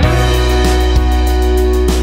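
Background music: sustained bass and chord notes over a light, steady percussion beat.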